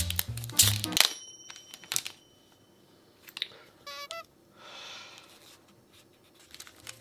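Crinkling and tearing of the plastic wrapping on a tray of curry roux blocks, over background music that cuts out about a second in. After that come a few soft rustles of the packaging, a short chirping tone around the middle, and the music comes back near the end.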